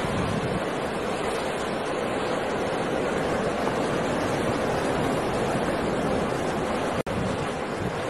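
Storm surf on a rough sea: waves breaking and churning into foam, with strong wind, a steady dense rush of water. The sound cuts out for an instant about seven seconds in.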